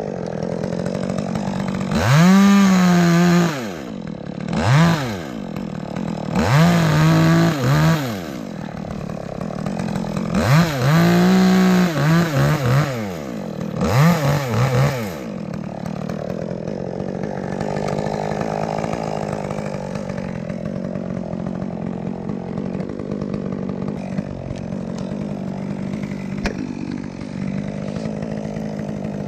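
Chainsaw revved up five times in the first half, its engine pitch climbing and dropping with each burst, then left running at a steady idle.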